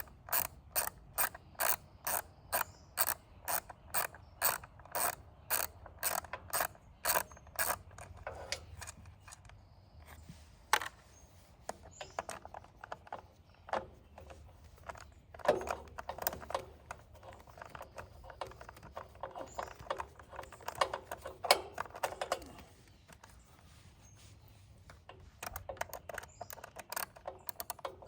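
Ratchet wrench clicking, about two to three clicks a second for several seconds, then in scattered strokes and short runs, as a nut or bolt is turned during work on a generator's carburetor.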